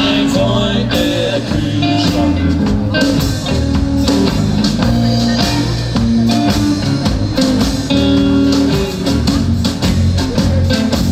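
A live band playing an instrumental rock-blues passage, with guitar over bass and drum kit.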